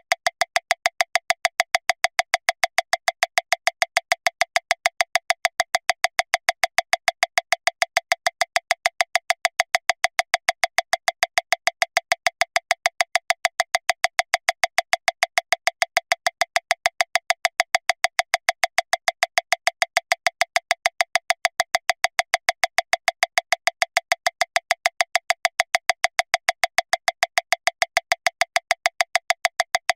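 Metronome clicking at 405 beats per minute, about seven short sharp clicks a second, every click equally loud with no accented beat.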